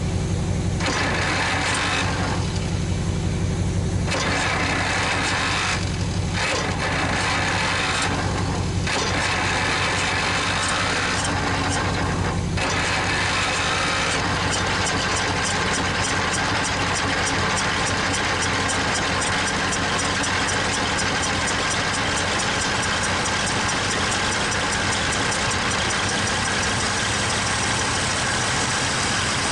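Chrysler industrial 218 flathead six in a Worthington tractor running on its first start in decades, kept going on fuel poured into the carburetor. It runs uneven and surging for the first dozen seconds or so, then settles into a steadier beat.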